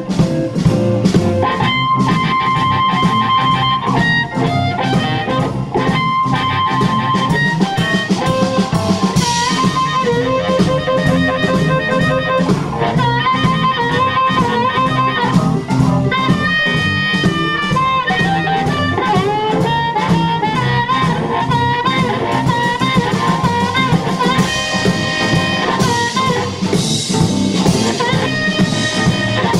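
Live blues band playing: a harmonica cupped against a microphone leads with bending notes over upright double bass, guitar and drums.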